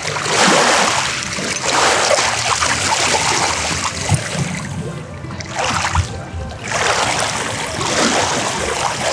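A dog wading and splashing through shallow water over pebbles, in surges of splashing with short lulls, over faint background music.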